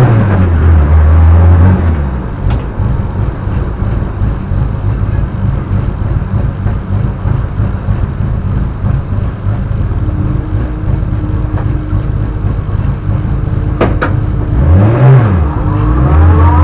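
Peugeot 106 race car's four-cylinder engine, heard from inside the cabin: revving in short blips for the first couple of seconds, then running at low revs, then blipped up and down twice near the end.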